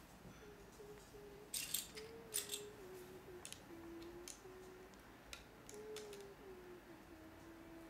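Plastic Lego bricks clicking and rattling as they are handled and pressed together, with a cluster of sharp clicks about two seconds in and a few lighter ones later. A child hums a tune softly underneath.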